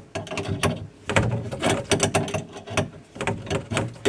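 Rapid, irregular metallic clicks and rattles of a hand tool working a fitting on the sink's cold-water supply line.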